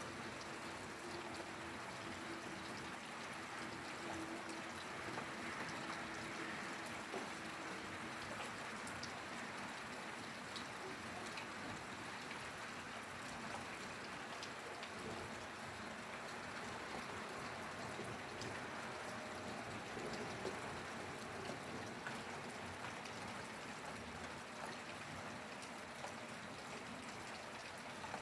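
Steady rainfall, an even hiss with scattered individual drops ticking.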